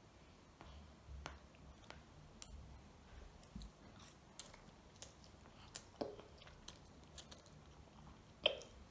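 A child eating ramen noodles with chopsticks, faint chewing and slurping with scattered small clicks, the sharpest near the end.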